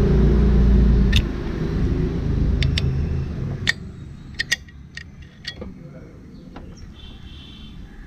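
A low rumble fades away over the first three seconds. Then come a scattering of light metallic clicks and taps as the clutch cable's end fitting and threaded adjuster are worked into the engine-side bracket.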